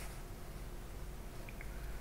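Quiet kitchen room tone: a steady low hum, with two faint, brief high blips about one and a half seconds in.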